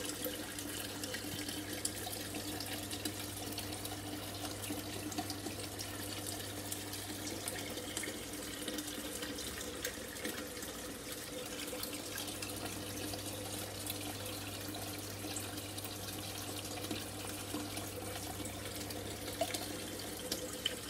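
Aquarium water trickling and splashing steadily, as from a filter's return flow, over a low steady hum.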